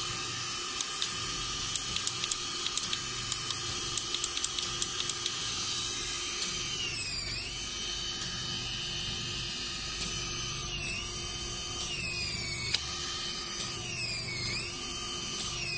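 Body handle of a vacuum roller cavitation slimming machine running on the skin: a steady motor hum and hiss with many light clicks, then, from about six seconds in, several whines that dip and rise again in pitch.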